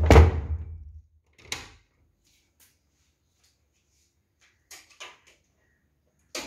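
A wooden door with a screen is pulled shut with a loud knock. A softer knock follows about a second and a half later, then a few faint knocks near the end.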